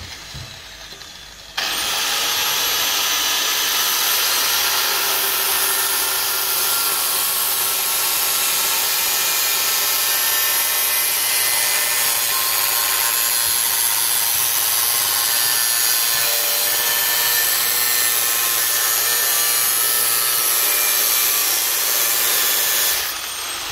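Corded angle grinder with a cutting disc spinning up about a second and a half in, then cutting steadily into the edge of a painted sheet-steel car panel with a loud, dense, high-pitched whine, and stopping just before the end.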